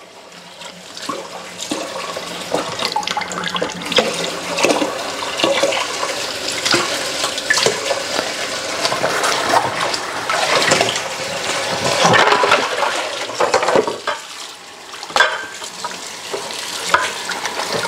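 Kitchen tap water running into a stainless steel bowl in a sink, with irregular splashing as a lump of freshly churned butter is kneaded and rinsed under the stream to wash out the buttermilk. The water noise drops briefly near the end, then picks up again.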